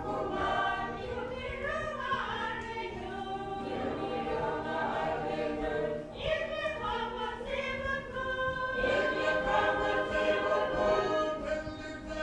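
A choir singing a slow gospel hymn translated into Inupiaq, with long held notes.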